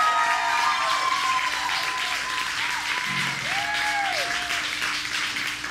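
Audience clapping and cheering as a song ends, with a low steady hum underneath.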